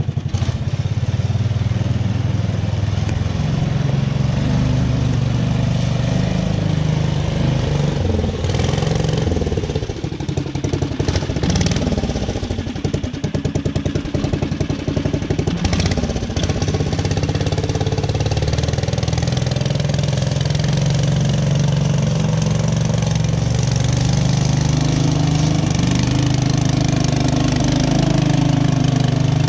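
COOT UTV engine running on its rebuilt carburetor, the engine note shifting up and down in pitch now and then as the throttle changes.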